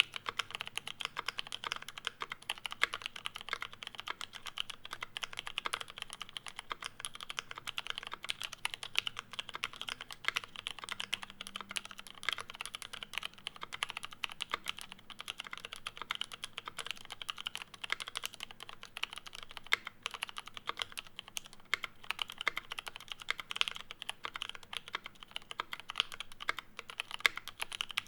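Continuous fast typing on a custom mechanical keyboard with lubed Cherry MX Brown tactile switches, GMK keycaps and a brass case: a dense, steady stream of key clacks.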